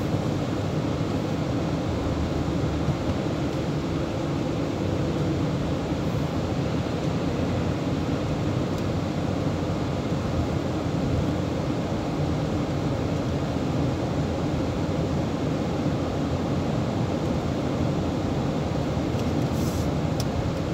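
Steady cabin noise inside a Chevrolet Tahoe cruising at highway speed: a constant hum of tyres, wind and engine with no change in pitch or level.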